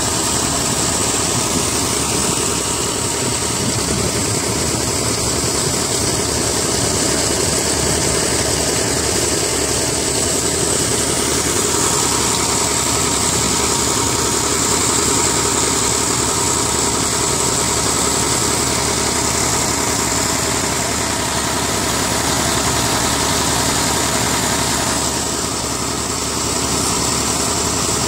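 Tractor's diesel engine running steadily at a constant speed, driving a tube-well water pump by a long belt and pulley shaft.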